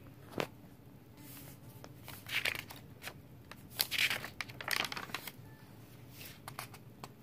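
Paper pages of a handmade junk journal being turned by hand: papery rustling swishes, the loudest and longest about four seconds in, with a few light clicks.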